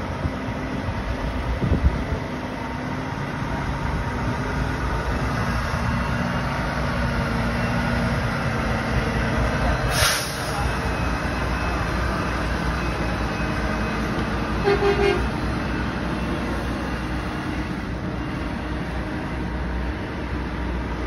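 Semi-truck haulers driving slowly past with a steady diesel engine and tyre rumble. A sharp hiss comes about halfway through, and a truck horn gives one brief toot about three-quarters of the way in.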